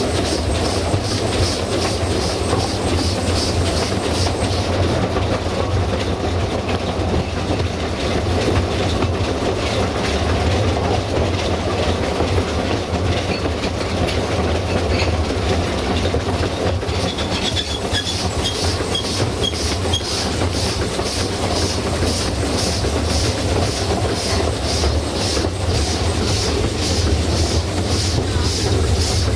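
Narrow-gauge steam train heard from aboard while it runs: a steady rumble and running noise from the carriage and wheels, with a rapid regular beat of about four strokes a second that fades in the middle and comes back.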